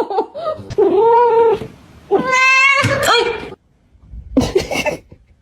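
Domestic cat meowing: two long, drawn-out meows, the first about a second in and the second just after two seconds, then a shorter sound near the end.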